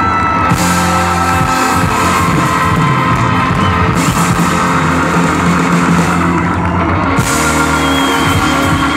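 Live band playing loud music with electric guitar, bass guitar, drum kit and organ.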